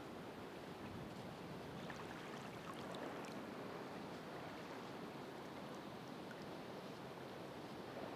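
Ocean waves washing in a steady, continuous rush of surf, swelling slightly a few seconds in, with faint scattered ticks.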